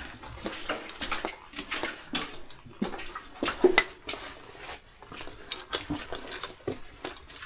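Footsteps on wet stone and loose slate in a mine passage: irregular crunching and clinking steps with some splashing.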